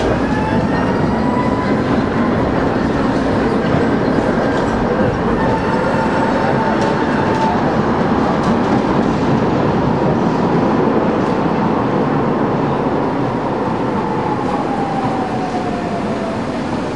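Electric trams running on street rails: a steady rolling rumble with a thin high whine that holds near one pitch and falls away near the end.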